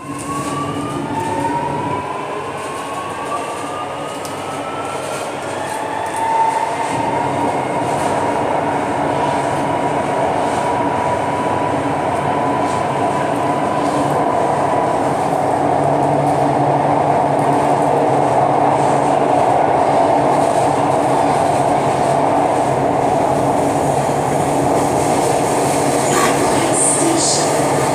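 Alstom Metropolis metro train's traction motors pulling away and accelerating, heard from inside the car: several whining tones rise in pitch over the first eight seconds or so, then settle into one steady tone as the train runs on through the tunnel. The running noise of wheels and air grows louder as speed builds, with a few light clicks near the end.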